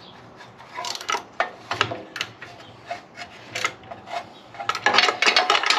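Metal clicks and taps of small hand tools on a Predator 4000 generator's carburetor as a fuel fitting is tightened back up. The clicks come scattered at first, then in a quick dense run near the end.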